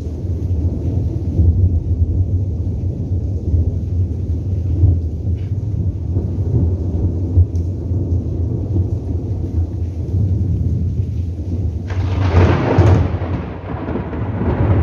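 Rolling thunder in a continuous low rumble, with a louder, sharper peal breaking in about twelve seconds in.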